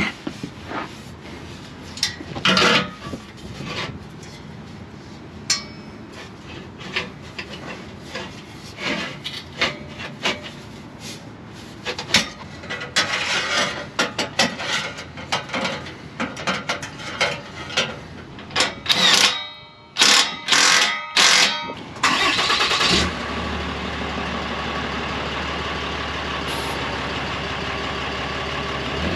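Scattered metal clinks, taps and knocks from fitting stainless exhaust pipe sections and tightening their clamps with hand tools. About 23 seconds in, the truck's 6.7 L Cummins turbo-diesel takes over, idling steadily through its new dual-tip exhaust.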